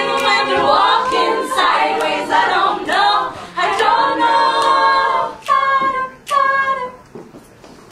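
All-female a cappella group singing in close harmony through the song's final bars. The voices end on two short chords about five and a half and six seconds in, then die away.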